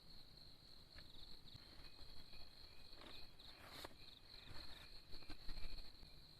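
Insects chirping in a steady, high, pulsing trill, with a few brief knocks and rustles around the middle.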